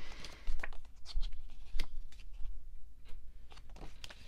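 Pages of a small glossy album photo book being turned by hand: paper rustling, with several sharp page flicks.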